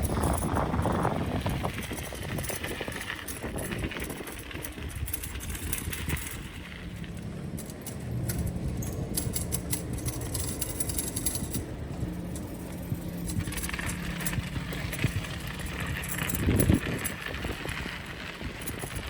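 Bicycle being ridden, with wind buffeting the microphone and tyre rumble on the path. A steady low hum runs through the middle part.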